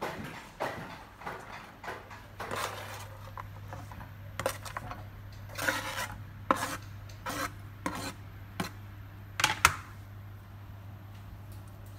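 Chef's knife scraping chopped chocolate off a board into a stainless steel bowl: irregular scrapes of the blade, with chocolate pieces and the knife clinking against the metal bowl, the sharpest knocks near the end. A low steady hum underneath.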